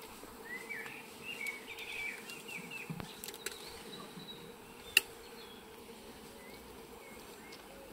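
A honey bee colony buzzing with a steady hum, with a few short chirps in the first seconds and one sharp tap about five seconds in.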